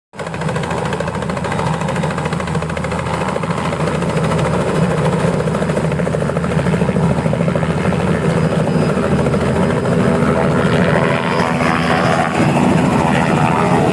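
Helicopter close by, its rotor beating steadily over the engine's whine, growing slightly louder over the first few seconds.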